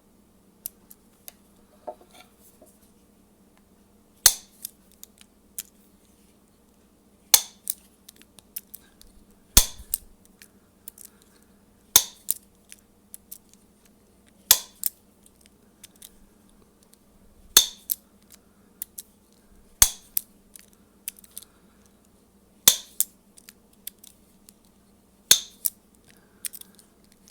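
A bump key in a Master padlock being struck over and over: a sharp metallic rap about every two and a half seconds, with lighter clicks of the key and lock between the blows, as the pins are bumped until the shackle is freed.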